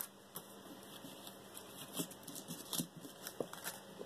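A few light, scattered clicks and rustles of beaded earrings and a paper number card being picked up and moved off a table.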